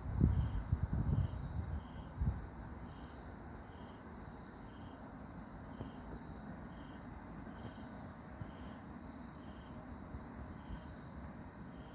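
Crickets chirping at night: a steady, regular chirp about one and a half times a second over a fainter continuous trill. Low rumbling thumps are heard in the first two seconds.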